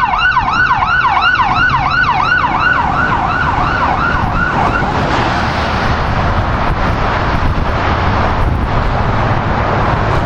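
Fire department vehicle's electronic siren sounding a rapid yelp, about three rising-and-falling sweeps a second, that fades out about five seconds in as the vehicles pull away. A steady rush of road noise follows.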